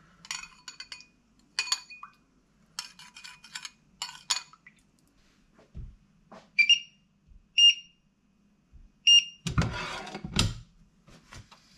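A metal spoon clinking against a ceramic bowl several times, then three short high beeps from a Bosch induction hob's touch controls as it is switched on, and a frying pan scraping on the hob's glass top near the end.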